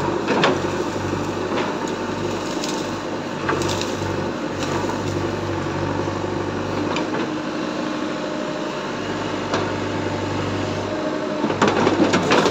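JCB backhoe loader's diesel engine running steadily while its backhoe bucket breaks down a brick wall. Bricks crack and tumble near the start and again, louder, about a second before the end.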